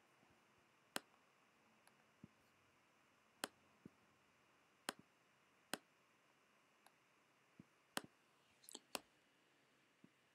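Computer mouse clicking: about a dozen single sharp clicks at uneven intervals, with a quick run of clicks about nine seconds in.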